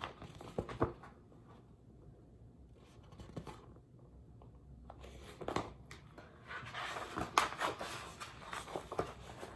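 Pages of a soft-covered picture book being handled and turned: a few faint taps at first, then paper rustling and crinkling over the last few seconds as the page is turned.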